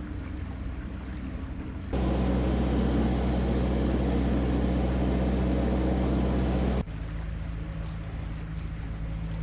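Narrowboat's diesel engine running steadily while cruising. For about five seconds in the middle it is suddenly louder and fuller, then drops back just as suddenly.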